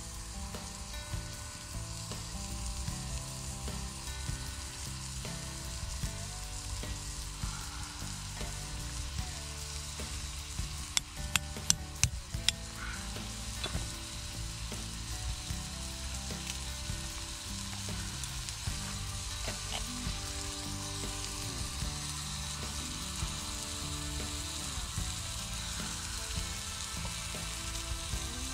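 Twig fire in a small wood-burning camp stove, crackling and hissing steadily under a frying pan, with a cluster of several sharp loud clicks near the middle. Soft background music runs underneath.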